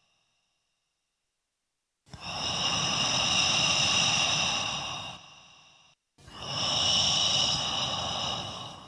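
Two long, slow breaths, about two seconds in and then again just after the sixth second, each a breathy rush lasting about three seconds that fades out.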